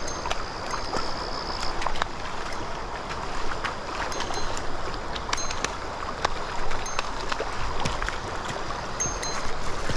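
Small river rushing steadily over its bed, with scattered small clicks. A thin high tone is heard early on and stops about two seconds in.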